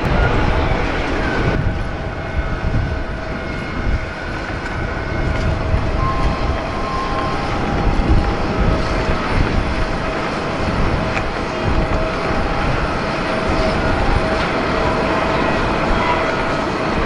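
Airbus A350-900's Rolls-Royce Trent XWB turbofan engines running as the airliner rolls along the runway: a steady deep rumble with a few thin whining tones over it.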